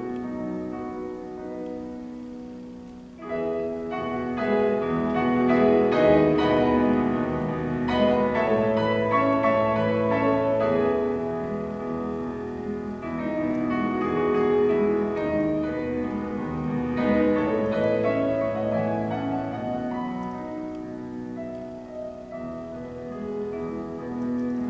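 Solo grand piano playing a classical-style piece in sustained chords and melody: soft at first, with a sudden louder entry about three seconds in, then gradually softening toward the end.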